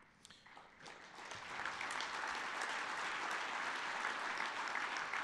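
Audience applauding in a large hall. The clapping starts thinly about half a second in, builds over the next second and then holds steady.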